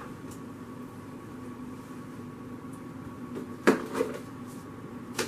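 Plastic kitchen containers and bowls being handled on a counter: a sharp clack about three and a half seconds in, a softer one just after, and another near the end, over a steady low room hum.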